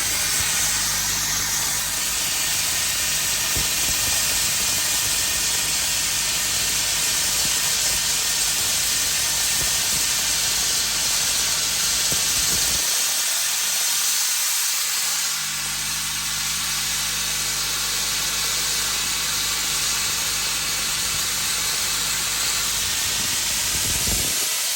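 Abrasive media-blasting nozzle hissing steadily as it strips paint from a boat hull, with a low engine hum underneath that briefly drops out about halfway through.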